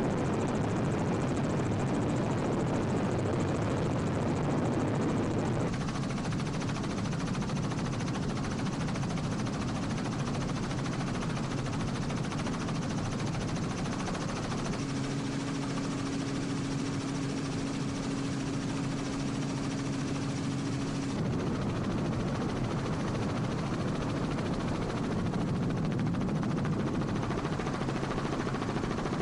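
Helicopter running steadily, with a continuous engine and rotor noise and a pulsing low beat from the blades. The sound shifts slightly a couple of times without stopping.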